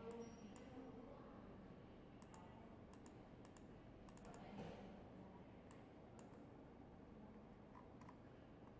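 Faint, scattered clicks of a computer mouse over quiet room tone, bunched in quick groups in the first half and then single clicks every second or two.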